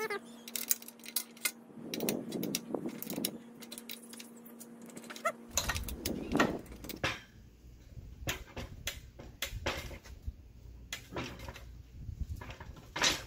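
Hand tools and hardware clinking as nuts are fitted and tightened on bolts with a wrench: scattered short metal clicks and taps.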